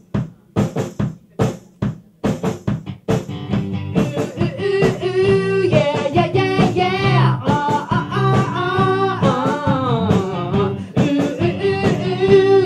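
A small rock band playing live in a small room: bass guitar, electric guitar and drum kit. For the first few seconds they play short, separate stabs with gaps between, then the playing becomes continuous and a sung vocal comes in about four seconds in.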